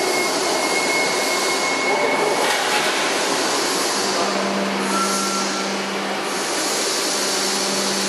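Steady machinery noise, an even loud hiss with a faint high whine early on, and a low hum that comes in about four seconds in.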